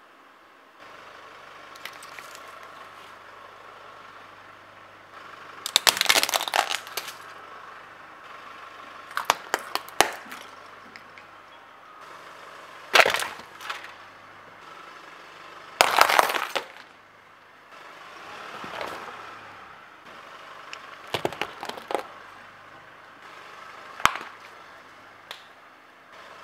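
Objects being crushed under a car tyre: a series of sudden loud cracks and crunches, about seven, a few seconds apart, over a faint low steady hum.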